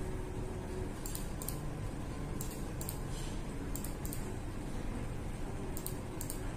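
Light clicks from a computer mouse and keyboard during AutoCAD work, mostly in quick pairs, a pair every second or so, over a steady low room hum.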